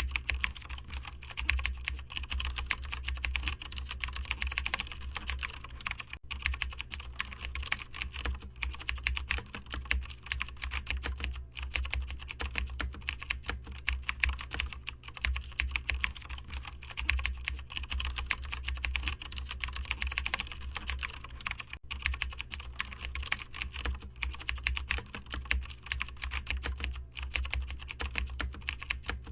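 Computer keyboard typing: a continuous, rapid run of keystrokes, pausing only briefly twice, over a steady low hum.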